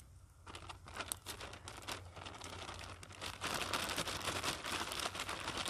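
Paper bag of flour crinkling and rustling as it is handled with food pieces inside, in sharp crackles at first, then louder and more continuous from about three and a half seconds in.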